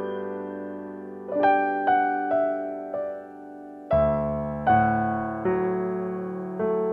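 Slow background piano music: single notes and chords struck and left to fade, with a low bass note coming in about four seconds in.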